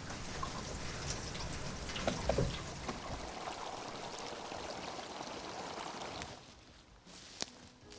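Water trickling and splashing in a steady wash of noise, fading out about six seconds in. A different outdoor sound starts just before the end.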